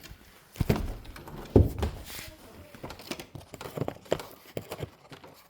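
Plastic clicks and knocks from handling the Dreame X40 robot vacuum's mop pads while pressing them onto their magnetic mounts, with one louder thump about one and a half seconds in.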